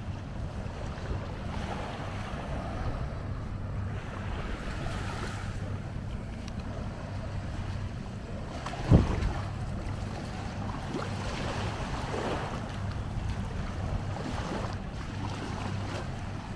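Wind rumbling on the microphone over small waves lapping and feet splashing through shallow water, with one sharp thump about nine seconds in.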